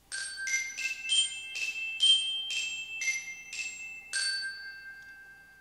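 Short intro jingle of bell-like struck notes, glockenspiel-style. About ten notes come roughly two a second, and the last one rings on and fades away.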